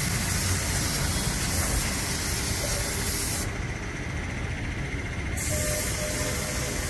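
Compressed-air spray gun hissing as it sprays a final coat onto a harvester's steel frame; the hiss cuts off about three and a half seconds in and starts again about two seconds later. A steady low machinery rumble runs underneath.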